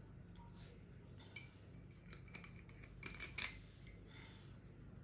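Faint clicks and light clinks of small hard objects being handled, a few scattered taps with the loudest cluster about three seconds in.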